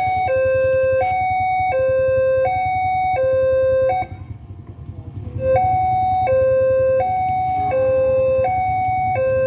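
Railway level-crossing warning alarm sounding a two-tone signal, alternating between a low and a higher pitch about every 0.7 seconds. It breaks off for about a second and a half near the middle, then resumes, over a steady low rumble.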